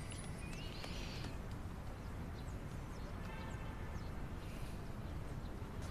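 Faint background ambience with a few scattered, short, high chirps of small birds.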